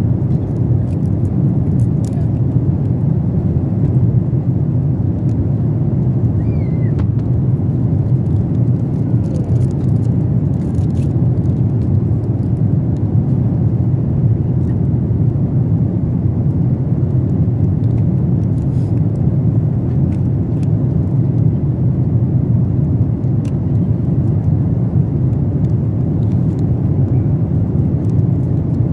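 Steady low rush of airliner cabin noise, the engines and airflow heard inside the passenger cabin, with a few faint clicks of small handling noises over it.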